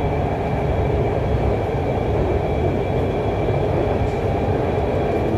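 Inside a moving Lahore Orange Line metro car: the steady running rumble of the train on its track, with a faint, steady high hum above it.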